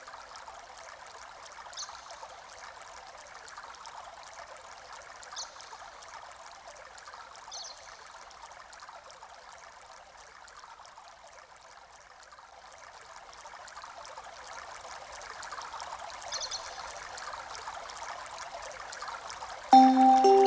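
Steady running water, like a trickling stream, with a few short high chirps scattered through it. Music with long held notes comes in loudly near the end.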